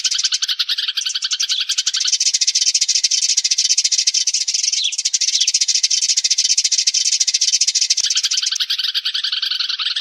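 Sparrows chattering in a dense, continuous run of rapid chirps: a flock-calling recording used as a lure to draw sparrows in for trapping.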